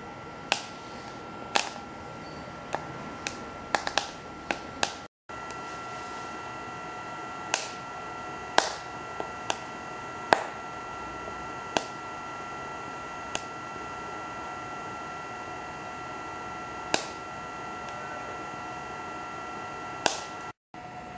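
BioLite CampStove's built-in fan running steadily with a thin whine while the wood fire inside crackles, giving sharp pops at irregular intervals, most thickly in the first five seconds. The sound cuts out briefly twice.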